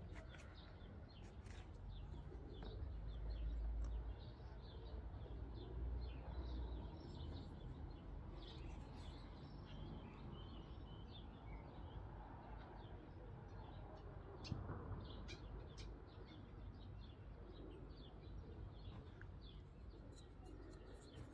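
Songbirds chirping and calling, many short chirps throughout, over a faint outdoor background with a low rumble that swells a few seconds in.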